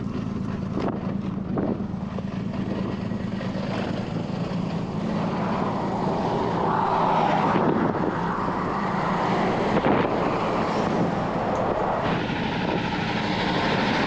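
Road and traffic noise swelling as a semi-truck approaches along the highway, over a steady low engine hum. Two knocks about a second in, as the car door is opened and shut.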